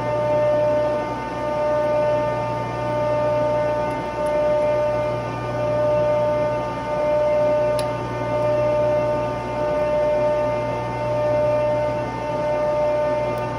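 Steady drone of running industrial plant machinery: a low hum with several higher steady tones above it, swelling and fading about every second and a half.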